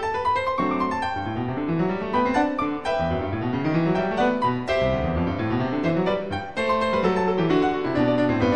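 Solo classical piano music, with quick rising runs of notes in the lower register in the first half, then fuller chords.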